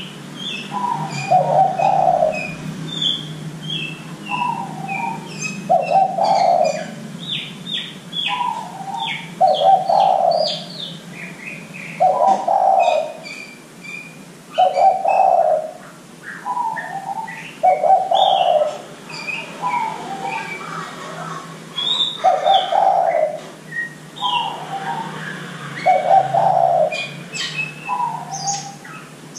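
Spotted dove (derkuku) cooing over and over, each phrase a short higher note falling into a deeper drawn-out coo, repeated every few seconds. Small birds chirp high and thin throughout.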